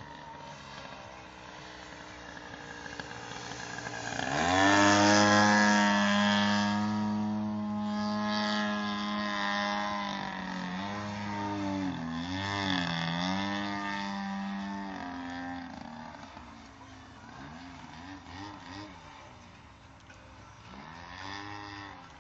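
DLE 55cc single-cylinder two-stroke petrol engine of a radio-controlled Sbach 342 model plane in flight. Its note swells sharply about four seconds in, holds steady, dips and wobbles in pitch several times, then fades.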